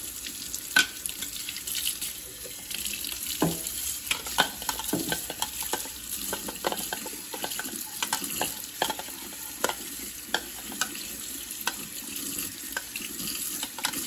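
Tap water running and splashing off a plastic coffee-grinder bean hopper into a stainless steel sink, as the hopper is rinsed and turned in the hands. Scattered sharp clicks and taps come through the steady splashing.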